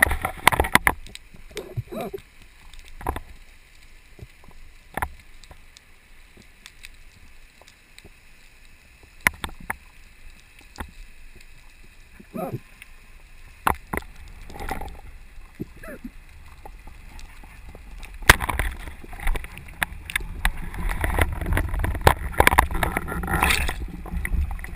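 Underwater sound through a GoPro's waterproof housing on a freedive: scattered sharp clicks and knocks and short gurgles of water. About eighteen seconds in it turns to a louder, continuous rush of water over the housing.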